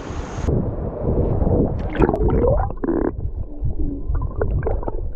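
Muffled underwater gurgling and bubbling from a camera under water, with scattered knocks and a short gliding squeal about two seconds in.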